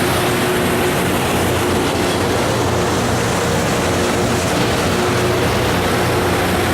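Loram RG308 rail grinder train running: a steady diesel engine hum under a loud, even rushing noise that holds level throughout.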